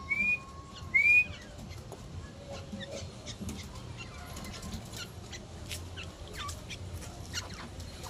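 Grey francolin giving two short whistled notes, each rising then falling, one at the start and a louder one about a second in. After that only faint scattered ticks and chirps.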